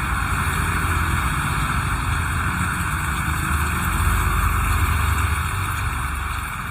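Heavy rain falling steadily, with the low engine rumble of a passing motor vehicle that swells about four seconds in and fades away near the end.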